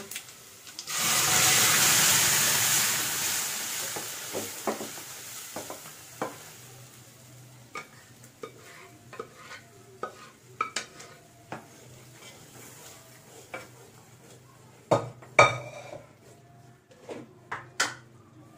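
Hot oil tempering sizzling loudly as cooked toor dal is poured into it, the hiss fading away over several seconds. Then a wooden spatula scraping the dal out of an aluminium vessel and stirring the pot, with scattered sharp knocks of the spatula against the pots, the loudest a pair about 15 seconds in.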